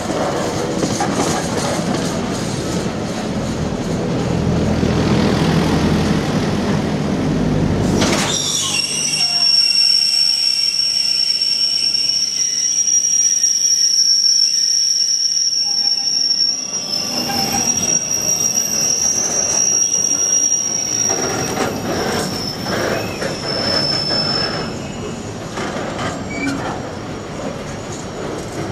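Freight train's container flat wagons rolling past with a rumble; about eight seconds in, a steady high-pitched wheel squeal sets in and holds for most of the rest, dying away near the end while the wagons keep rumbling by.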